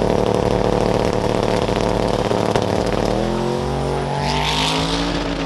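Third-generation Chevrolet Camaro drag car's engine held at high revs on the starting line, then launching about three seconds in, its note stepping up and rising as the car pulls away down the strip, with a burst of hiss near the end.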